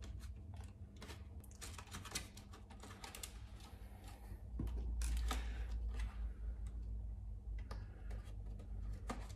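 Stiff plastic inner-fender pieces clicking and tapping against each other as they are handled and pushed together by hand, in small irregular clicks. A low rumble joins in about halfway.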